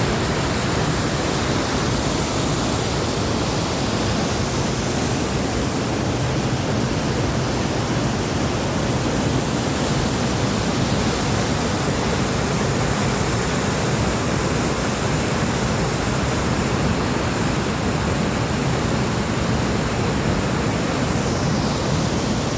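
Waterfall in a mountain stream, water falling steadily with a loud, even, unbroken rush.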